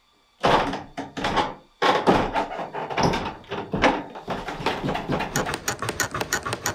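Footsteps on an old wooden staircase: shoes knocking on the worn treads, with the loosened treads and stringers creaking and clicking in a quick run near the end.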